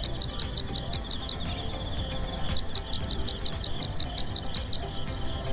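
Rapid high-pitched chirping, about five chirps a second, in two runs with a pause of about a second between them, over a low rumble.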